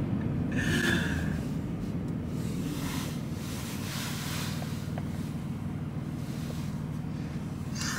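Steady low road and engine noise inside a moving vehicle's cabin. A person gives a long yawn that ends near the end in a loud vocal sigh falling in pitch.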